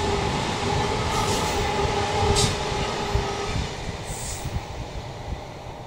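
SBB passenger train running past on a curved mountain line, its wheels squealing with a steady high ring over the rumble of the coaches. A sharp click comes about two and a half seconds in. The squeal stops a little past halfway, and the rumble fades as the train pulls away.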